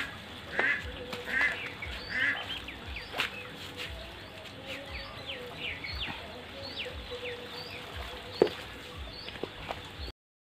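Ducks quacking: four harsh calls in the first couple of seconds, then fainter, high falling chirps and a few knocks. The sound cuts off suddenly just before the end.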